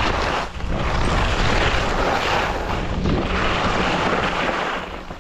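Skis scraping and carving through mogul snow in quick successive turns, the hiss swelling and easing with each turn, over wind buffeting the microphone.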